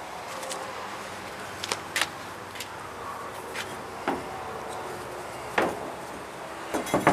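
Scattered light knocks and clicks, about half a dozen, over a steady background hiss: handling noises, with no horn blast.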